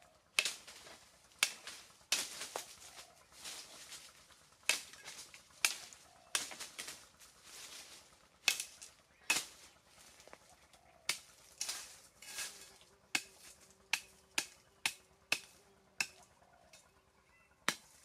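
A machete chopping at a wooden stake: about twenty sharp, irregular chops and knocks, with dry leaves rustling between them.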